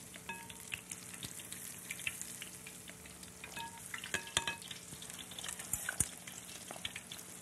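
Battered broccoli deep-frying as tempura in hot oil: a steady sizzle with crackling bubbles, broken by a few sharp clicks.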